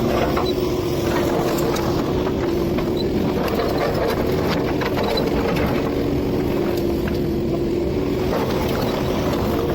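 Excavator's diesel engine running steadily as it digs, with a held drone and scattered short knocks and clanks.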